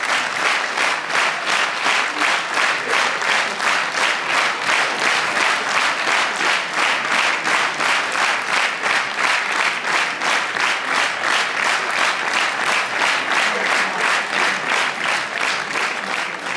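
Theatre audience applauding in unison, clapping in a steady rhythm of about three claps a second.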